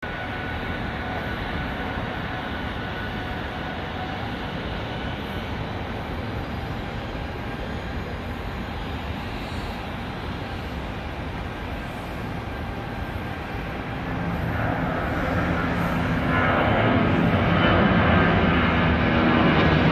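Boeing 757-24A(PF) freighter's jet engines at takeoff power through the takeoff roll and climb-out: a steady rumble with a faint whine, growing louder about two-thirds of the way in as the plane lifts off and climbs.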